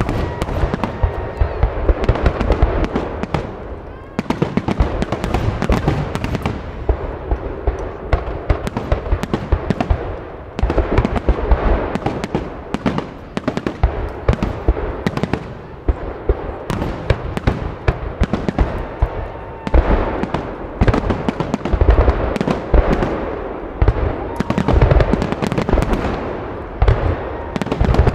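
Aerial firework shells of a salute display bursting in rapid volleys: a dense run of sharp bangs, crackles and deep booms, with short lulls every few seconds.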